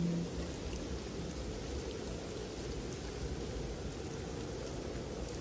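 Steady rain ambience: an even hiss of falling rain with faint scattered drop ticks. A held note of Quran recitation dies away right at the start.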